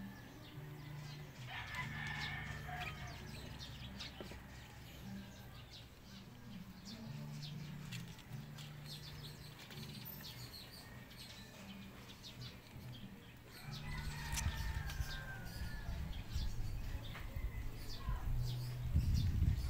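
Faint outdoor background with chickens and a rooster crowing, over a steady low hum; a low rumble comes in about two-thirds of the way through.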